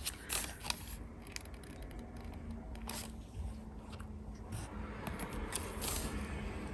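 Faint scattered rustles and light taps of stickers and paper being handled inside a cardboard box, a few short clicks spread irregularly through it.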